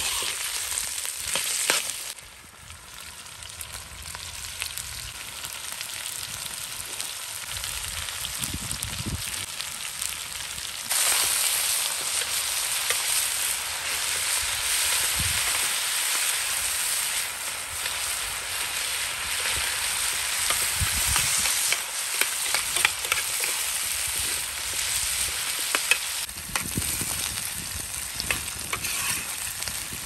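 Potato sticks frying in hot oil in a large metal pan over a wood fire, sizzling steadily, with a metal spoon stirring and scraping them in short clicks. The sizzle drops briefly just after the start, then swells sharply about eleven seconds in.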